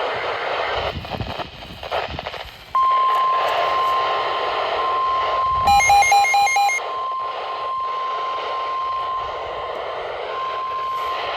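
NOAA Weather Radio warning alarm tone: after about two and a half seconds of radio static, a steady single 1050 Hz tone comes on and holds, dropping out briefly near the end, with a quick run of about six beeps over it around the middle. The tone signals that a warning broadcast follows.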